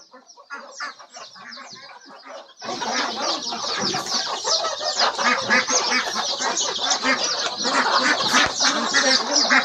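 A flock of ducks and chickens calling, a dense overlapping chatter of quacks and clucks that swells suddenly about two and a half seconds in, after scattered quieter calls.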